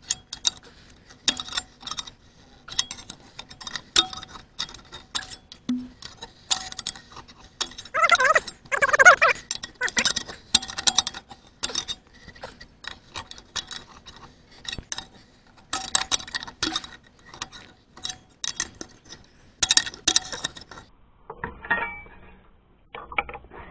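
Irregular metallic clinks and taps of hand tools, a steel bar and wrench, on a mower blade spindle and pulley as its nut is worked tight, with several louder ringing clinks in clusters.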